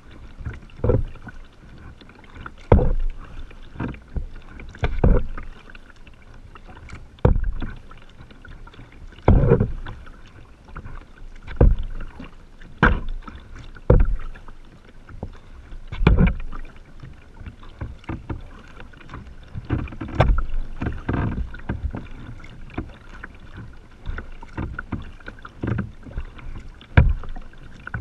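Kayak paddle strokes in calm water: the blades dip and pull at uneven intervals of about one to two seconds, each with a splash and drip, over a low steady hiss.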